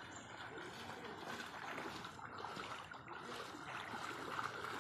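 Floodwater flowing with a steady rushing noise.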